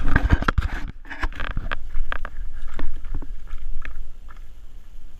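Aftermath of a 4 lb Shockwave "Earth Shaker" exploding target blast: a loud rumble and crackle for about a second, then scattered sharp knocks of debris coming down, thinning out and fading over the next few seconds.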